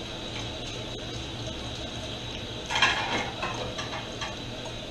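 Kitchen clatter: a short run of metallic clicks and knocks about three seconds in, the first the loudest, as metal utensils strike pots and dishes, over a steady low hum.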